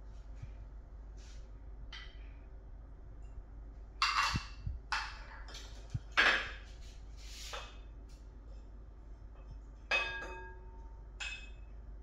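Kitchen items being handled and set down on a countertop: a plastic citrus juicer and small ceramic dishes give a few scattered knocks and scrapes, then two short ringing clinks about ten and eleven seconds in.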